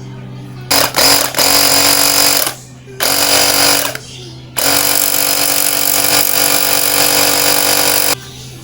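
Three hissing blasts of pressurised spray flushing out a motorcycle carburetor's passages. The first lasts about two seconds, the second about one, and the last about three and a half.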